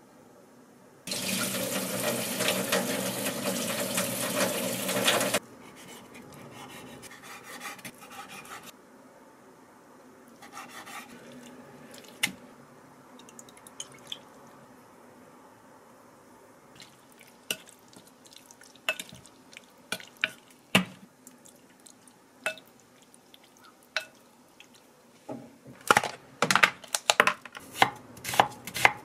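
A kitchen tap runs for about four seconds and stops abruptly. Then come quieter knife strokes and taps on a wooden cutting board as raw pork is sliced. Near the end there is a run of sharp clicks and knocks as frozen garlic is popped out of a silicone tray.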